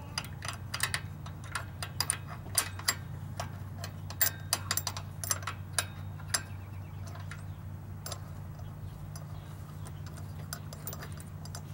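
Small irregular metal clicks and ticks as the go-kart's centrifugal clutch retaining bolt is threaded in by hand and the clutch parts shift on the shaft. The clicks are dense for about the first six seconds, then come only now and then.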